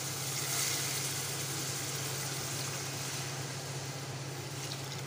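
Water poured from a glass into a cooking pot of fried chickpea masala, splashing into the curry, over a steady low hum.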